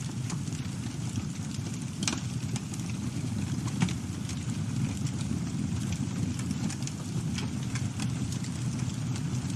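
Campfire burning: a steady low rumble of the flames with scattered crackles and pops, a sharper pop about two seconds in and the loudest about four seconds in.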